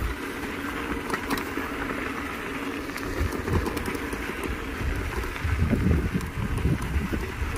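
Wind rushing over a phone's microphone and mountain bike tyres rolling on a dirt track at speed, a steady noise with heavier low buffeting about three seconds in and again around six seconds.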